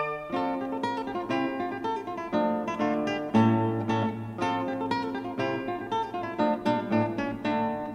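Background music: a plucked acoustic guitar playing a quick run of notes.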